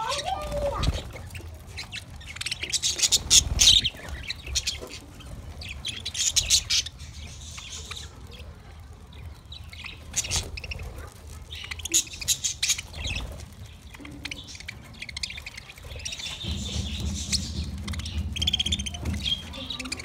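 A flock of budgerigars chattering in quick high chirps that come in bursts every few seconds, with a low rumble for about three seconds near the end.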